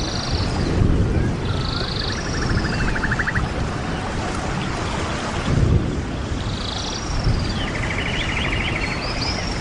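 Birds calling: short high calls with quick rising and falling slurs, and a rapid rattling trill twice, over a steady low rumble of wind on the microphone.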